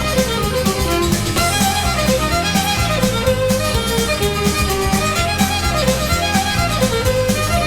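Instrumental band music: a lead melody over a bass line and a steady drumbeat.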